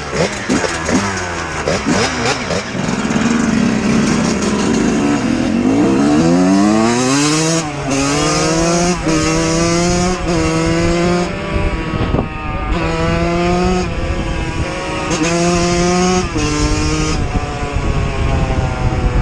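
125 cc two-stroke dirt bike engine revving hard. The revs climb steeply about six seconds in, then stay high with short throttle dips about once a second.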